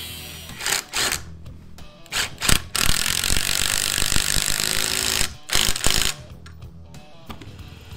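AEG cordless impact driver running nuts down onto bolts through stacked steel plates held in a vise: a few short bursts, a longer hammering run in the middle, then two more short bursts.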